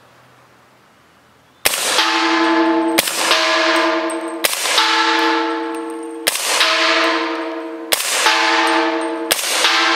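Six suppressed shots from a short-barreled AR-15 in .300 Blackout firing subsonic rounds, one to two seconds apart. Each is answered by a hit on the same steel target, which clangs and rings on at a steady pitch, fading until the next hit.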